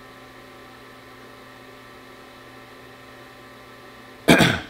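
Steady electrical hum, a mains-type hum of several even tones over a light hiss. Near the end it is cut into by a short, loud sound.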